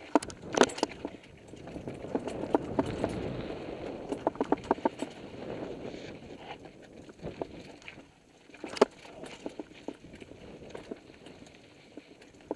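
Mountain bike rattling and clattering down a rocky trail: tyres rolling and crunching over rock, with a quick run of sharp knocks and chain slap as it drops over ledges, the loudest jolts about half a second in and near nine seconds, over a low rumble of rolling.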